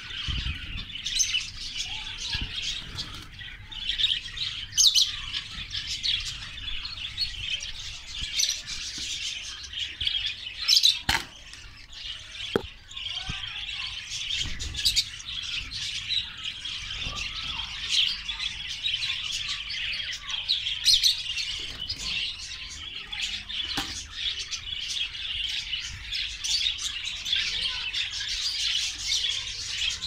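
A colony of budgerigars chattering and chirping together without pause, many birds at once. A few sharp knocks stand out now and then.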